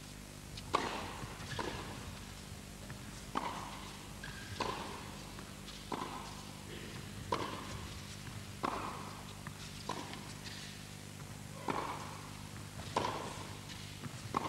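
Tennis ball being struck back and forth by racquets in a baseline rally, a sharp pock about every second and a half, each with a short echo from the indoor arena, over a steady low hum.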